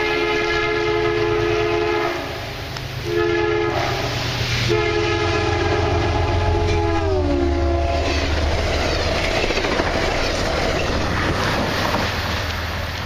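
Amtrak P32AC-DM diesel locomotive sounding its multi-tone horn: a blast ends about two seconds in, then a short one and a long one, the end of a grade-crossing signal. The long blast's chord drops in pitch as the locomotive passes. After that the passenger cars rumble and clack by on the rails.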